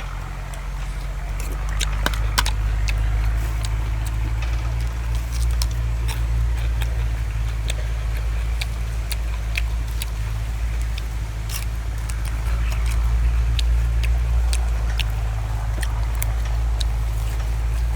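Someone chewing crunchy raw vegetables, a run of crisp irregular crunches, over a loud steady low rumble.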